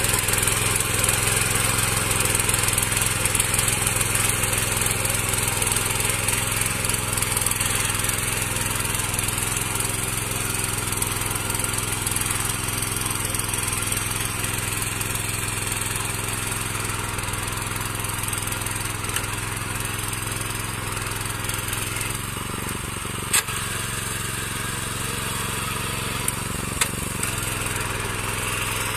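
Small engine of a walk-behind mini power weeder (rotary tiller) running steadily under load as its tines churn through the soil, growing a little fainter in the second half. A few sharp clicks near the end.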